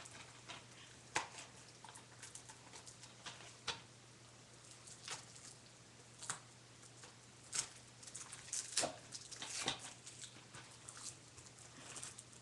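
Scattered clicks, taps and rustles of hands working at a plastic DVD case, trying to get it open, busier and louder from about seven and a half seconds in.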